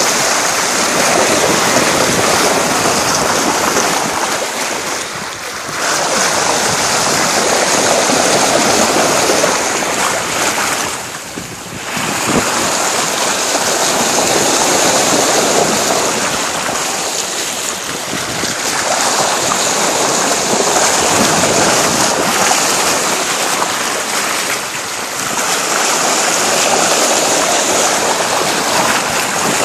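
Bow wave of a 42-foot sailboat under way, water rushing and splashing along the hull, with wind on the phone's microphone. The rush swells and eases every several seconds.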